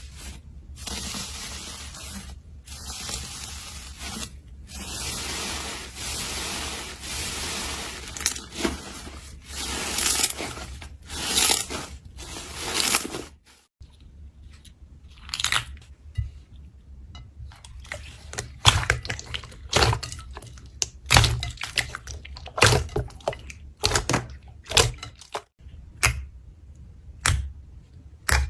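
Slime being squished and kneaded by hand: a continuous wet crackling for about the first half, then a run of separate sharp pops and clicks as air pockets in the slime burst.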